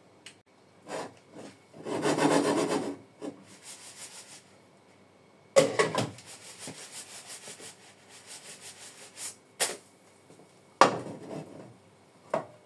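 Cookware handled on an electric stove: a frying pan scraped and moved over the hotplate. There is a stretch of rubbing and scraping, then a sharp clatter about five and a half seconds in followed by a few seconds of rattling scrapes, and a few single knocks later on.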